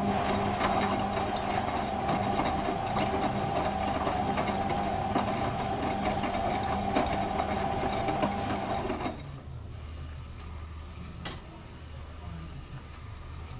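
Hotpoint WM31 washing machine's motor turning the drum on the wash tumble, a steady whine with light knocks, cutting out about nine seconds in as the drum pauses. A low hum and a single click follow.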